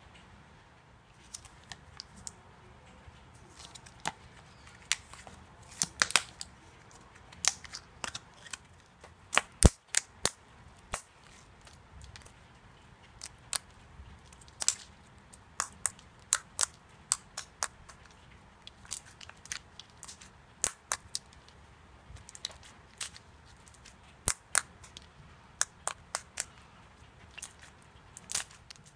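Slime being squeezed and pressed by hand, giving sharp, irregular pops and clicks, often several a second.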